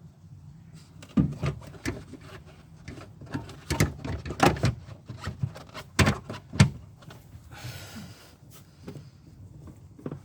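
Irregular knocks, clicks and clunks of a rear light cluster and its bulb holders being handled and pushed into place, with a brief scrape near the end.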